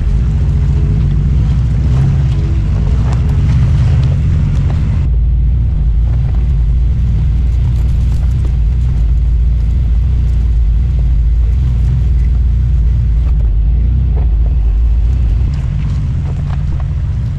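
Lifted 4x4 GMC Safari van's engine running steadily at low revs while it crawls a rocky trail, with scattered small knocks of tyres and underbody on rock. The sound turns duller about five seconds in.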